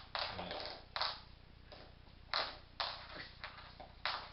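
Border Terrier puppy chewing and gnawing a bone on a wooden floor: a run of short, irregular scraping and tapping sounds, about two a second.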